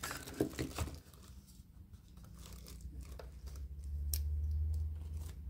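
Plastic packaging crinkling and a hard plastic blender base and its power cord being handled, with scattered clicks and rustles. A low rumble swells in the second half.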